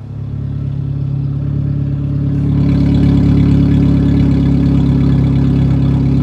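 Datsun pickup engine idling as its electric exhaust cutout opens. The exhaust jumps louder at once and keeps building for about two more seconds, then holds a steady, deep, open-exhaust idle.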